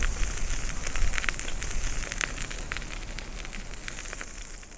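Wet snow pattering down, with scattered ticks of flakes hitting surfaces over a steady hiss and a low rumble of wind on the microphone. The sound fades away near the end.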